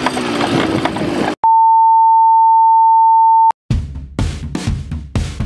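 About a second of quad-bike engine noise, then a steady high electronic beep held for about two seconds that cuts off abruptly. Background music with a heavy drum beat starts after it.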